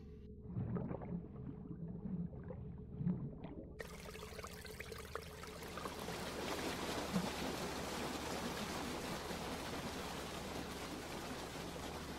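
A steady rush of running water, as in a filling bathtub, cuts in suddenly about four seconds in and carries on. Before it there are a few soft low sounds.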